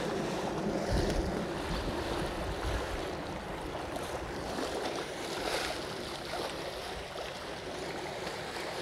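Steady wash of wind and river water along the shore, with gusts of wind buffeting the microphone as a low rumble about one second in and again between two and three seconds in.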